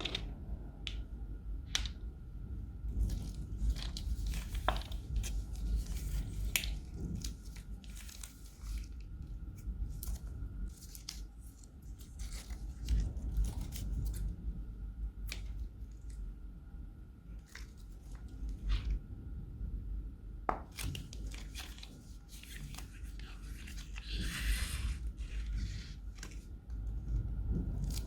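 Crunchy slime being handled and squeezed: irregular sharp crackles and pops, with a longer crackling hiss about 24 seconds in.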